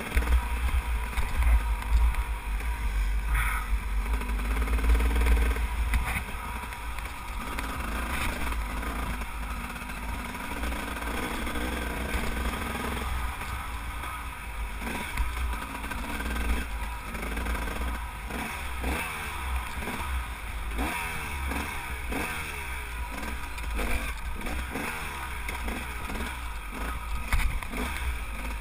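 Off-road enduro motorcycle engine under way, revving up and down over and over as the throttle is worked over a rough, rocky trail. A heavy low rumble of wind on the microphone dominates the first several seconds.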